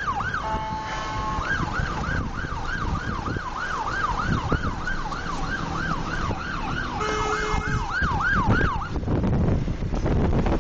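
Emergency vehicle siren on a fast yelp, its pitch rising and falling about twice a second, cut by two short horn blasts, once near the start and again about seven seconds in. The siren stops near the end, leaving low road and wind rumble.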